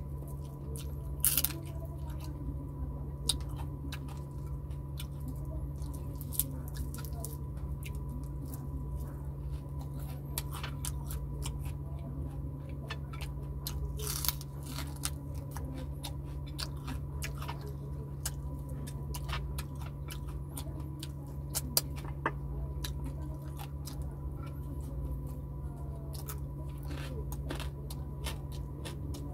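Close-miked chewing and biting of fried tilapia, with scattered sharp crunches and mouth clicks, over a steady low hum.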